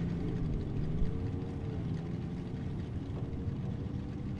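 Engines of off-road race vehicles idling: a steady low drone with a faint wavering tone above it.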